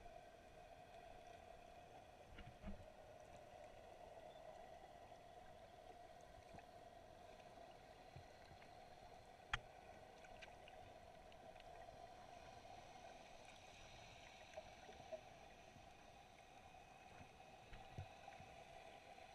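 Near silence: faint underwater ambience, a steady low hum with scattered small clicks, one sharper click about halfway through.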